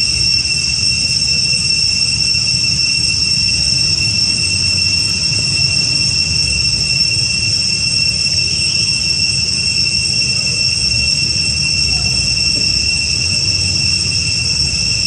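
Steady, high-pitched insect drone, an unchanging whine over a low rumble.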